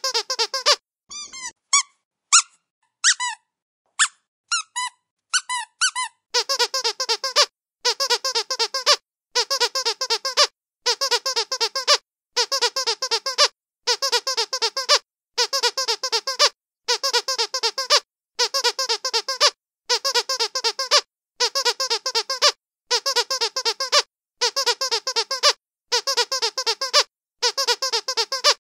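Squeaky dog toy being squeezed: a few separate short squeaks of varying pitch over the first six seconds, then a steady run of quick squeak bursts, each just under a second long, repeating about every second and a half with silence between.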